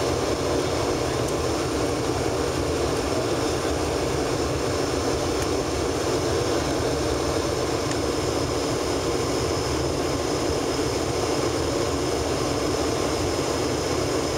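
Steady in-cabin noise of an Embraer ERJ-145 regional jet in flight: the drone of its rear-mounted Rolls-Royce AE 3007 turbofans and the rush of air past the fuselage, with a faint steady high whine on top.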